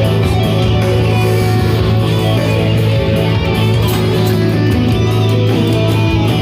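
Guitar played continuously in a right-hand picking warm-up, with quick repeated pick strokes over a steady low note.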